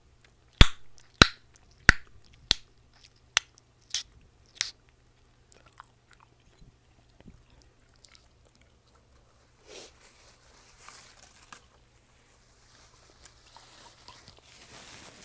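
Chewing gum being snapped in the mouth: seven sharp pops about two-thirds of a second apart, growing weaker. Softer wet chewing follows from about ten seconds in.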